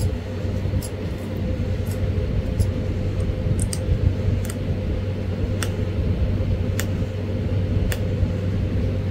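Pressure flaking of a coral arrowhead: sharp, faint clicks about once a second as small flakes pop off the edge under a hand-held pressure tool. Under them runs a steady low hum from a fan or motor.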